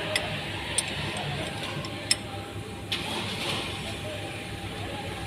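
Four short sharp clicks and knocks in the first three seconds as a Mitsubishi Pajero's front wheel hub and steering knuckle are handled during dismantling, over a steady workshop hum.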